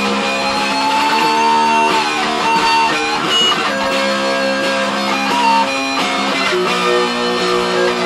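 Stratocaster-style electric guitar playing held chords and single melody notes, the chords changing every second or two, with a few notes sliding in pitch.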